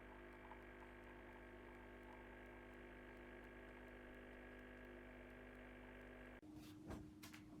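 Faint steady hum made of several fixed tones, which changes abruptly about six and a half seconds in to a single lower tone with a few clicks.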